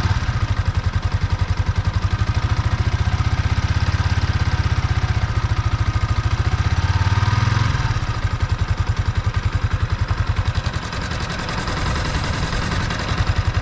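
Yamaha Exciter 155 VVA's single-cylinder engine idling with a steady, rapid beat, a little quieter from about eight seconds in. It runs slightly noisy, which the owner puts down to the original oil, still unchanged at 500 km.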